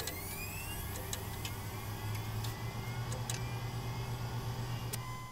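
Electronic intro sound: a steady low hum under rising whooshing sweeps and scattered clicks, with a short high beep near the end.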